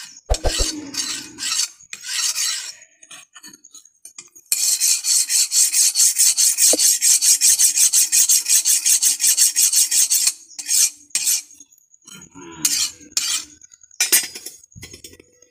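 Flat file rasping along the steel edge of a hand-forged drawknife (bark-peeling knife), sharpening the blade. A few single strokes come first, then a long run of quick, even strokes lasting about six seconds, and a couple more strokes near the end.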